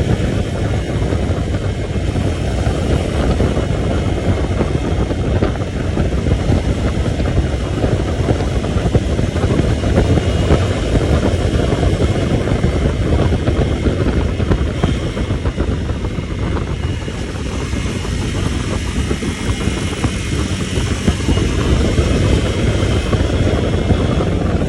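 A vehicle's engine running steadily while under way, with a heavy low rumble and wind noise on the microphone. It eases off a little past the middle and picks up again near the end.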